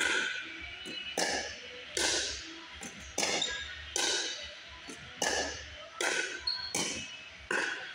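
Pickleball paddles striking a plastic pickleball back and forth in a soft dinking rally, a sharp pock about once a second, nine or so in all, each ringing on in a gymnasium's echo.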